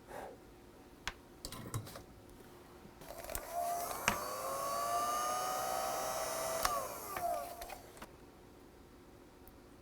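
Small electric motor and fan whirring with a hiss and a whine for about four and a half seconds, the pitch rising as it starts and falling as it stops, likely a heat gun shrinking heat-shrink tubing over freshly soldered wires. A few light clicks and knocks come before it.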